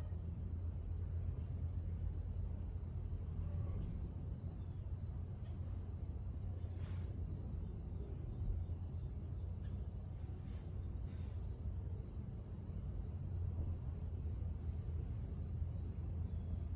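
Crickets or other insects keeping up a steady high-pitched trill, over a low, constant rumble, with a few faint ticks.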